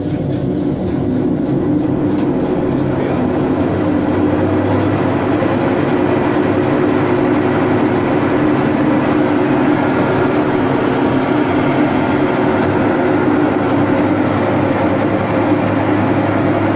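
18 kg Mabe washing machine in its spin cycle, running with a loud, steady mechanical noise and low hum that builds over the first two seconds and then holds. This is the abnormal noise the machine makes when spinning.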